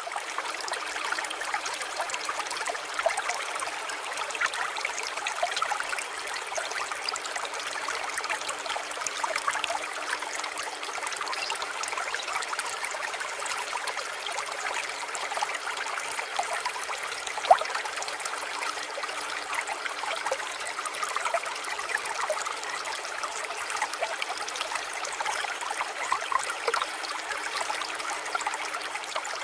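Water trickling steadily, with small irregular splashes and drips.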